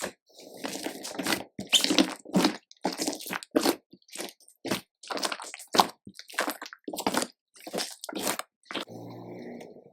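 Slime being kneaded and pressed by hand: a quick run of crackling clicks and pops from trapped air, over wet squishing, with a softer drawn-out squelch near the end.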